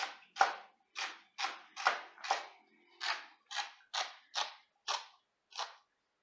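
Chef's knife slicing celery on a plastic cutting board: a steady run of cuts about two a second, with a short pause around three seconds in, stopping near the end.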